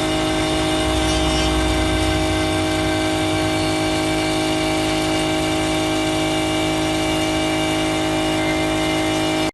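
CNC wood router running, its 3 HP water-cooled spindle giving a steady whine of several fixed tones.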